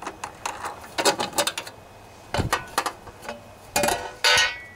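Hard plastic air filter cover on a Briggs & Stratton twin-cylinder engine being unscrewed and lifted off: bursts of plastic clicks, knocks and rattles, the loudest with a brief scrape near the end as the cover comes away.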